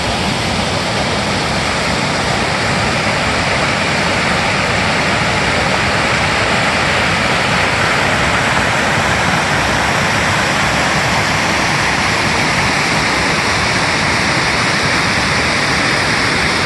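A waterfall pouring: a loud, steady rush of falling water.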